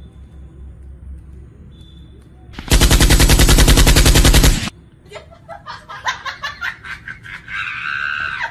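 A loud burst of rapid, evenly spaced shots, like machine-gun fire, starting about three seconds in and lasting about two seconds. After it, a run of quieter quick clicks and taps.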